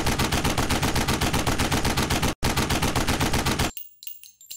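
Automatic-gunfire sound effect: a rapid, even string of shots, about eight a second, broken by a brief gap just past halfway and stopping about three-quarters of the way in. Faint metallic clinks follow.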